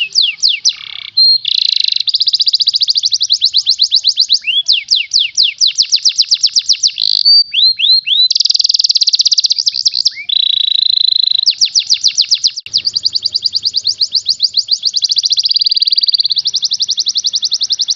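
Domestic canary singing a fast, unbroken song: long trills of quickly repeated notes, about ten a second, many of them falling in pitch. Short held whistles break the run twice.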